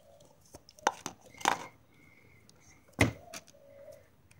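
Handling sounds as lumps of Play-Doh are put down on a plastic bag: a few sharp taps and knocks, the loudest about three seconds in, over faint rustling.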